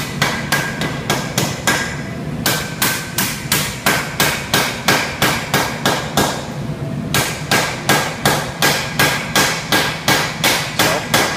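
Hand hammer striking a glowing pattern-weld bar stack on a steel anvil, forge welding the bars together. The blows come about three a second with a ringing note, and break off twice briefly.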